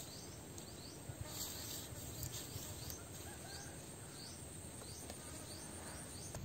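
Faint outdoor rural ambience with a short, high chirp repeating about twice a second from a small calling animal.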